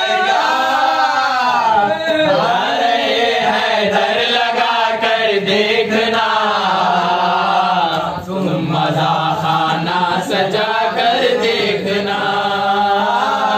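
Men singing an Urdu devotional song in praise of Ali in a chanting style, one lead voice with others joining in, with no break in the singing.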